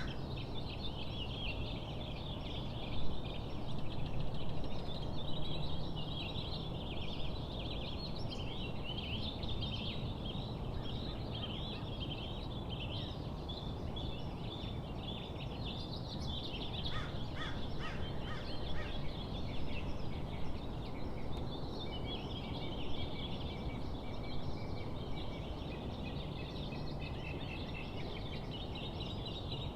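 Many small birds chirping and singing over one another, over a steady low rumble of background noise. A little past the middle, one bird gives a short run of lower, falling notes.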